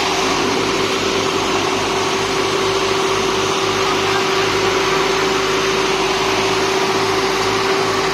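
Indo Farm 3035 DI and Swaraj 744XT diesel tractor engines running hard under load as they pull against each other on a taut chain: a steady engine drone with a low, evenly pulsing throb and a constant high tone.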